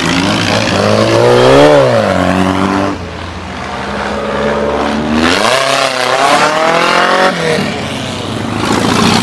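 Off-road buggy engines revving hard as the buggies accelerate past on a dirt road, the pitch climbing and then falling away twice, about a second in and again about five seconds in.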